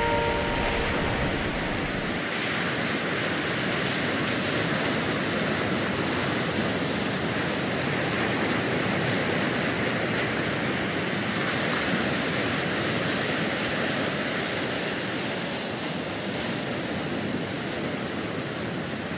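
Rough sea surf: a steady wash of breaking waves, with no distinct individual breakers.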